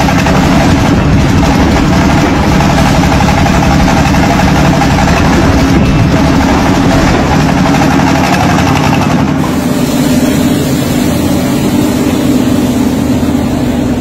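Small engine of a homemade tractor-based forklift running steadily as it drives over gravel; the high end of the sound goes duller about nine seconds in.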